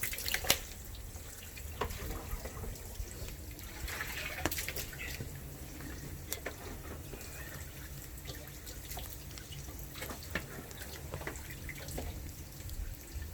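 Water trickling and dripping in a sink, with scattered small clicks and knocks of things being handled.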